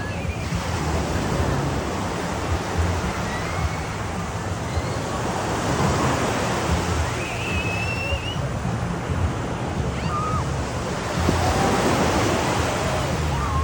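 Ocean surf breaking and washing steadily on the beach, with wind buffeting the microphone.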